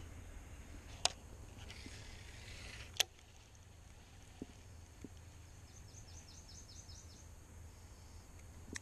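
Baitcasting reel during a cast: a small click, a brief soft whir as line pays off the spool, then a sharp click about three seconds in as the reel engages. A short run of faint high ticks follows later, over a low steady background rumble.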